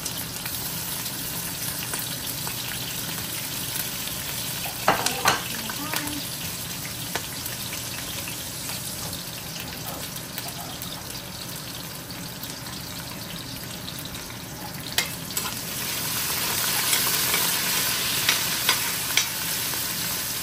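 Onion, garlic and pimento peppers sizzling in hot oil with spices in a pot: the chunkay that starts a Trinidadian curry. A spoon stirs and knocks against the pot a few times, and the sizzling grows louder over the last few seconds.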